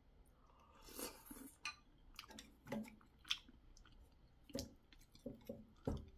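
A person chewing soft noodles and dumpling, with wooden chopsticks clicking now and then against a plate and the pot as more food is picked out.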